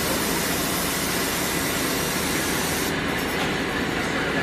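Steady, even machinery noise of a brake-disc machining workshop, with CNC lathes and a robot arm at work. The highest hiss thins out about three seconds in.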